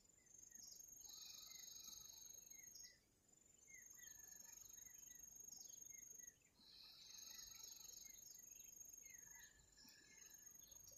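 Faint ambience of insects trilling steadily at a high pitch. A second, louder insect buzz comes in twice, and short bird chirps are scattered throughout.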